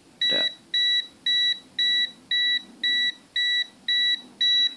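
Aneng AN8009 multimeter's non-contact voltage detector beeping at a steady rate of about two short high beeps a second, held close to a live mains cable: the beeping is its signal that it senses live voltage in the cable.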